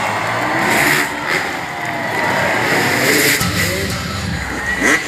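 Freestyle motocross motorcycles' engines revving, their pitch rising and falling, with a sharp rev-up near the end.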